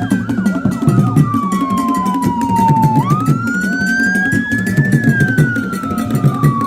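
A wailing siren sweeping slowly down in pitch, jumping back up about three seconds in, rising for about two seconds, then falling again, over a steady drum beat.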